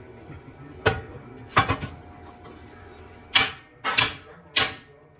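Metal being struck in a workshop: a series of sharp clanks with brief ringing, a few scattered at first, then four at a steady rhythm about every 0.6 seconds.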